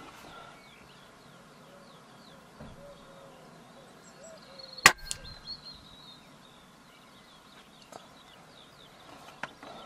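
A single shot from a Walther Reign PCP air rifle about five seconds in, a sharp crack with a fainter click a fraction of a second after it. Faint high chirps sound in the background.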